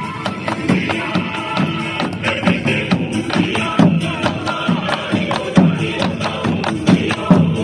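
Square-dance music with a steady beat falling about every three quarters of a second, with sharp percussion strokes and a melody over it.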